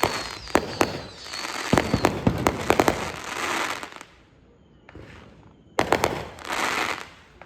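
Fireworks going off: a rapid run of sharp bangs with crackling and a steady high whistle over the first two seconds. A short lull follows about four seconds in, then another cluster of bangs and crackle near the end.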